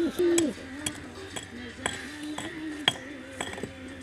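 Pigeons cooing, low hoots that are strongest in the first half second and then carry on faintly, with sharp clinks about twice a second.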